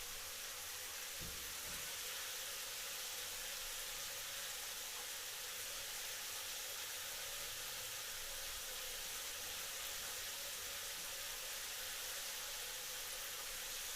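Shower running: a steady spray of water pattering down.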